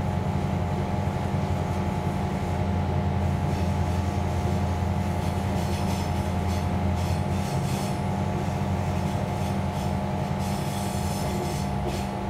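Inside a passenger train carriage as the train rolls into its terminal station: a steady low hum and rumble, with wheel squeal and clicking from the rails coming in during the second half. The deepest part of the hum drops away a little past halfway.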